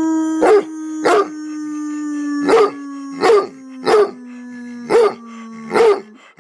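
A man holds one long howl, slowly falling in pitch and stopping near the end, while a hound dog barks seven short times over it.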